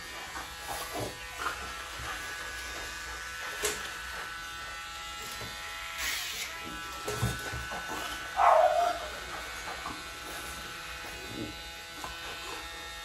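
Handheld electric nail grinder running with a steady whine while filing a French Bulldog's nails. There is a short falling squeal about eight and a half seconds in.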